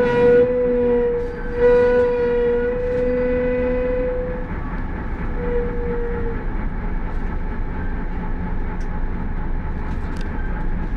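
Minibus brake pads squealing: a steady whistling tone with a lower second tone under it, broken briefly near the start, dying out about four and a half seconds in, with one shorter squeal a second later. After that only the rumble of the engine and traffic remains.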